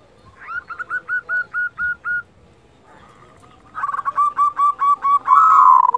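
Zebra dove (perkutut) giving its rapid 'kerot' call, two bouts of short hooked notes at about four a second. The second bout ends in a longer, louder drawn note. This is the excited call keepers play to stir other perkutut into breeding condition.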